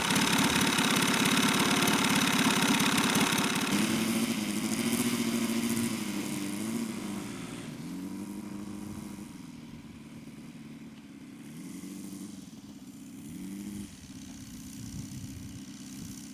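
A model aircraft's 53 cc four-stroke gasoline engine running loud at high power for the first few seconds. It then fades steadily, its note rising and falling several times.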